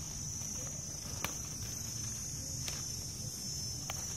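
Steady high-pitched chorus of insects shrilling, with a few faint clicks and rustles from a hand picking leaves among the vines.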